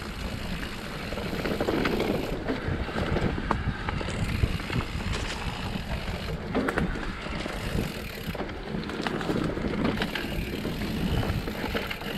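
Mountain bike riding down a dirt trail: wind buffeting the microphone over steady tyre noise, with frequent clicks and rattles as the bike jolts over the rough ground.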